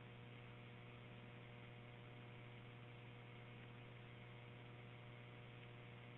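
Near silence: a faint, steady low hum with light hiss, the background noise of the recorded dispatch-radio audio between transmissions.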